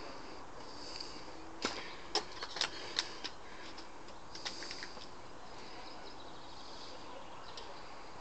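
A quick run of sharp clicks and knocks about one and a half to three seconds in, with a few fainter ones a little later, over a steady background hiss.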